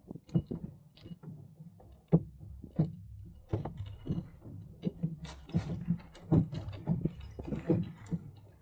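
Irregular hollow knocks, slaps and light rattles on a small fibreglass sailboat as it sails through small waves: water slapping the hull of a 1965 Sunfish.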